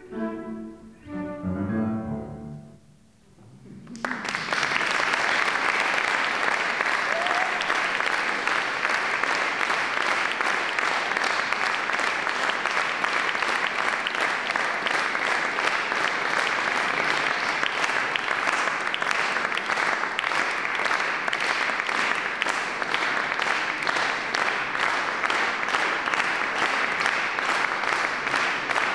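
A flute trio and piano play their last descending notes, which fade out within the first three seconds. From about four seconds in, audience applause begins and continues steadily.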